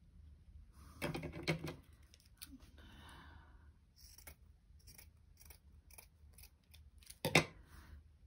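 Fabric scissors snipping through cotton fabric in a series of short cuts. There are louder bursts of cutting and handling about a second in and near the end, the later one the loudest.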